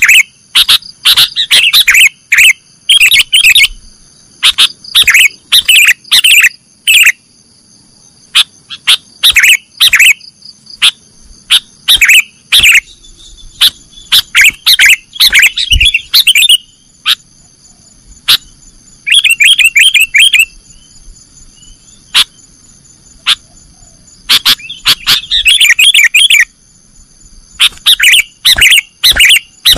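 Sooty-headed bulbul (kutilang) singing in the loud 'nggaruda' style: rapid bursts of sharp chirps and chattering phrases, broken by short pauses of a second or two.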